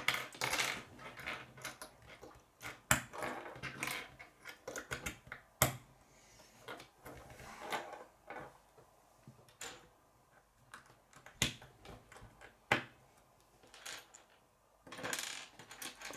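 K'nex plastic pieces being handled and clicked together on a wooden tabletop: irregular light clicks and rattles, with a few louder sharp clicks.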